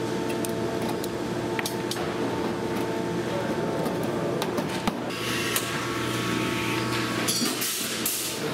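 Steady workshop hum with scattered sharp clicks and knocks from blind riveting on aluminium sheet, and a brief motor whir near the end as a cordless electric rivet tool runs.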